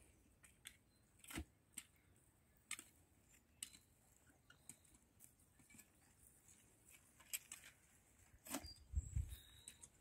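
Near silence, broken by scattered faint clicks and taps, with a few soft low thumps near the end.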